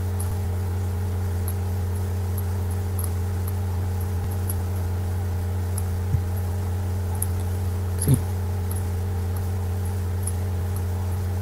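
Steady low electrical hum with several fixed tones stacked on it. Over it come faint, light clicks of a computer mouse now and then as shapes are dragged and rotated. There is a soft knock about six seconds in and a louder one about eight seconds in.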